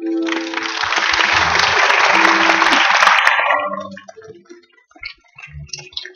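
Wedding guests applauding loudly over music, the clapping dying away after about four seconds to a few scattered claps.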